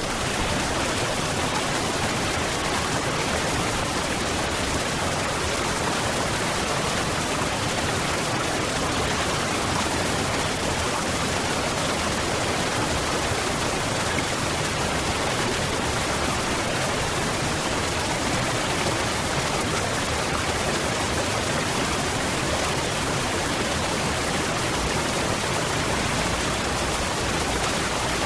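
Waterfall: a constant, even rush of falling water.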